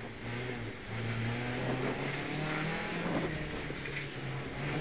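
MG ZR rally car's four-cylinder engine heard from inside the cabin, pulling at low revs in first gear through a hairpin, the note rising a little about a second in and then holding.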